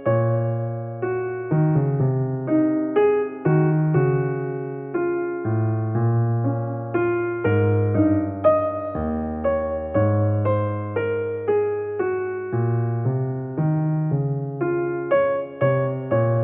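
Soft background music played on a keyboard: struck notes that ring and fade, a little more than one a second, over held low bass notes.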